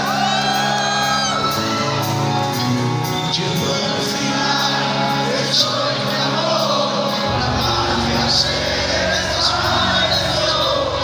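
Hard rock band playing live in a large hall, with sustained, bending guitar or vocal lines over a steady cymbal tick; a deep bass comes in about seven seconds in. Shouts and whoops from the crowd.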